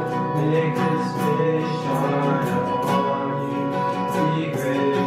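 Background song on strummed acoustic guitar, with a singing voice.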